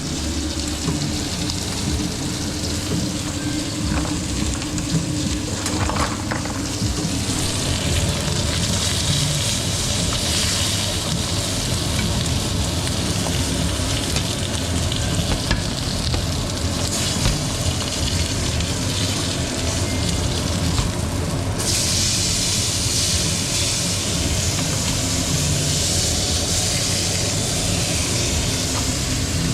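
Chuletón steak searing in a hot pan: a steady fat sizzle that grows brighter about seven seconds in and jumps louder about two-thirds of the way through, over a low steady rumble.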